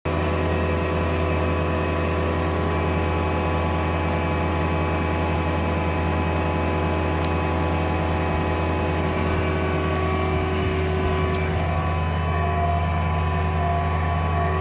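Fecon stump grinder running steadily: a constant machine drone with a strong deep hum and several steady tones above it.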